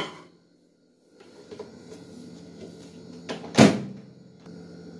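Microwave convection oven's door shut with one sharp clack about three and a half seconds in, over a faint steady hum and a few small clicks.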